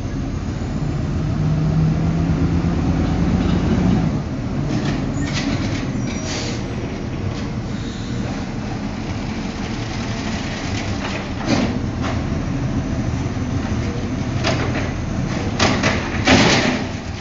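Automated side-loader garbage truck's diesel-type engine running as the truck pulls forward, louder over the first few seconds, then idling. Near the end its hydraulic arm lifts a trash cart, with a few sharp knocks and clatters as the cart is tipped into the hopper.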